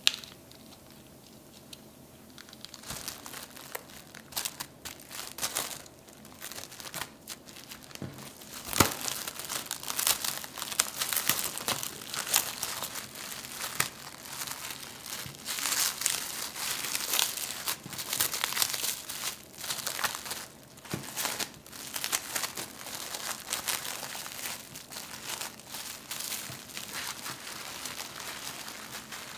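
Plastic cling film crinkling and crackling in irregular bursts, starting about three seconds in, as it is pulled and folded tightly around a sandwich.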